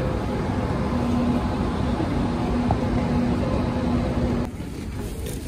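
Steady low rumble and hum of a railway station with high-speed trains standing at the platforms. About four and a half seconds in, it cuts abruptly to a quieter, thinner sound with a few light clicks.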